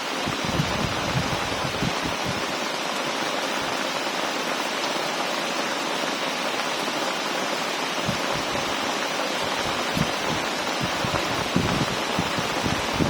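Heavy rain pouring steadily, with scattered brief low thumps.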